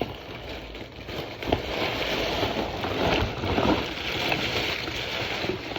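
Rustling and scraping with a few sharp clicks as a box of alligator bones and scutes is rummaged through by hand.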